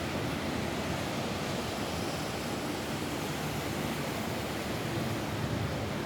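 Steady rain falling on a roof: an even, unbroken hiss without separate drops standing out.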